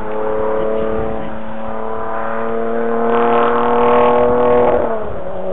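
Historic rally car engine accelerating hard, its pitch climbing steadily and growing louder, then dropping sharply about five seconds in as it shifts up a gear and starts climbing again.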